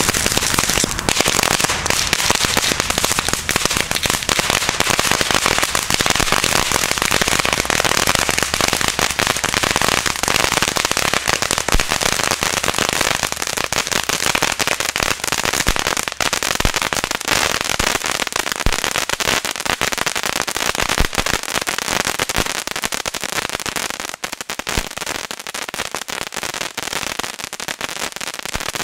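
Lone Star Crackling Vulkan firework fountain burning: a steady hiss of spraying sparks laced with a dense rattle of small crackling pops, easing off a little in the last few seconds.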